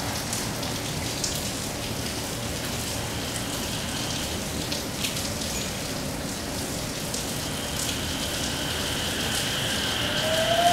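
Steady rain, with scattered drops hitting close by. Near the end, the traction motors of a JR 227 series electric train set off with a rising whine as the train starts to pull away.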